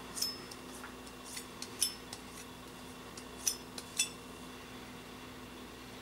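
Fingers rubbing along a stainless steel kitchen knife blade, with a scatter of faint clicks and clinks of the metal over the first four seconds, two of them ringing briefly.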